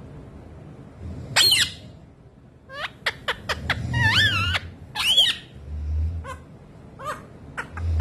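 Rose-ringed parakeet (Indian ringneck) making short warbling calls and sharp chirps in a courtship display: one call about a second and a half in, a quick run of clicking chirps, two longer wavering calls around the middle, and a few brief chirps near the end.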